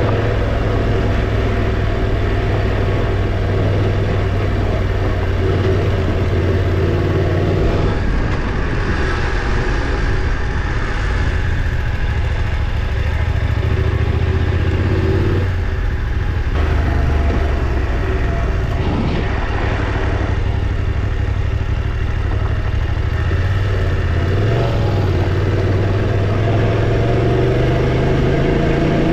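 Motorcycle engine running under way, its note shifting with throttle and gear changes and rising steadily over the last few seconds as it accelerates, over a constant rush of riding noise.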